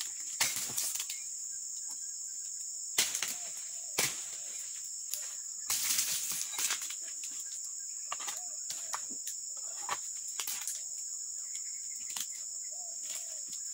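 A dodos palm chisel on a long pole strikes oil palm frond bases several times in sharp chops. Cut dry fronds rustle and scrape as they are dragged through the undergrowth, loudest about six seconds in. A steady high-pitched drone of insects runs underneath.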